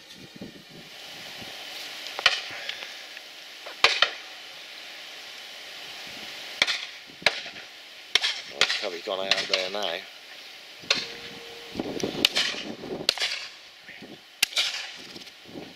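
Shotguns firing at driven partridges: about a dozen sharp shots at uneven intervals, some single and some in quick pairs, over a steady hiss.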